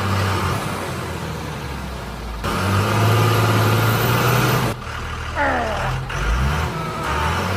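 Vehicle engine running at a steady pitch, heard in short pieces that cut off abruptly, about a third of the way in and again past the middle. Falling, sliding whistle-like tones follow about two-thirds of the way through.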